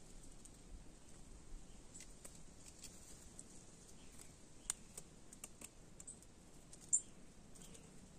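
Scattered faint clicks and taps of white-naped jays pecking at corn kernels and stepping in dry leaf litter. There is a sharper click about four and a half seconds in and the loudest one near seven seconds.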